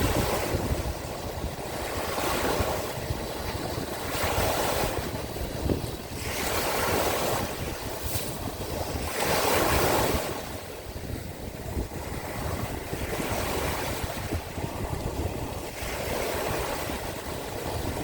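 Sea waves breaking and washing ashore in swells every two to three seconds, with wind rumbling on the microphone.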